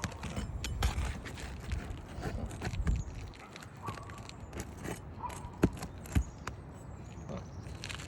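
Asphalt roof shingles being handled and scraped, with scattered clicks and two sharp knocks a little past halfway.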